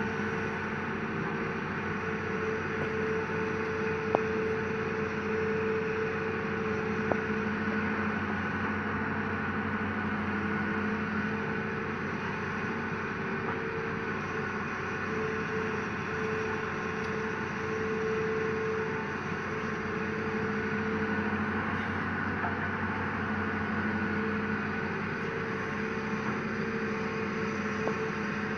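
Hitachi Zaxis 200 excavator's diesel engine running steadily under hydraulic working load, a constant drone with a thin whine above it. Two short sharp clicks sound about four and seven seconds in.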